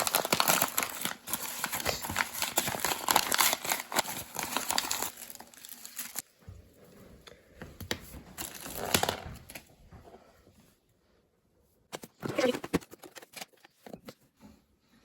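Paper being crinkled and torn, thick and continuous for about five seconds, then in scattered rustles with short bursts near nine and twelve seconds.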